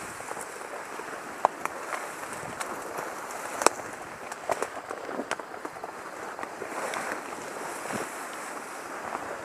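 Steady wind and movement noise rubbing on a body-worn camera microphone, with scattered small clicks and two sharp cracks, one about a second and a half in and a louder one about two seconds later.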